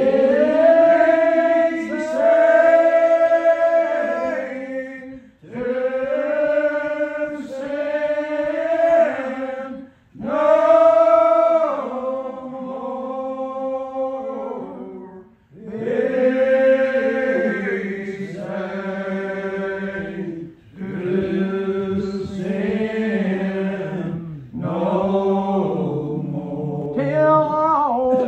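Unaccompanied congregational hymn singing in the slow, drawn-out Old Regular Baptist lined-out style. Each syllable is held as a long note in phrases of a few seconds, with short breaths between them.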